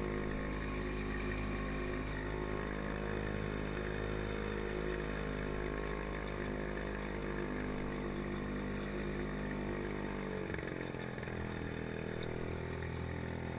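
Villiers 9E two-stroke single-cylinder engine of a Pengor Penguin amphibious ATV running steadily while afloat. About ten seconds in, the engine note drops to a lower speed.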